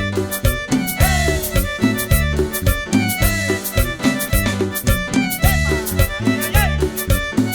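Cumbia band playing a steady beat: repeated percussion strokes and a bass line under a melody with sliding notes.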